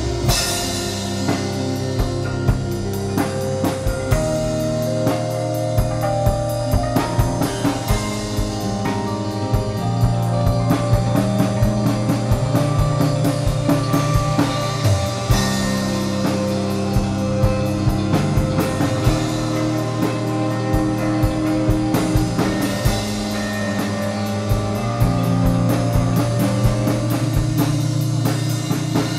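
A rock band playing: a drum kit keeping a steady beat with cymbals, electric guitar, and sustained low bass notes that shift pitch every few seconds.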